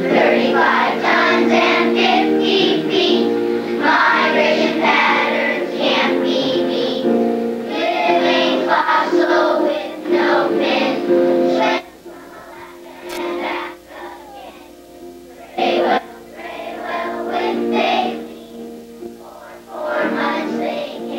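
A group of children singing together over steady instrumental accompaniment. About twelve seconds in the singing stops and it goes much quieter, and the singing starts again near the end.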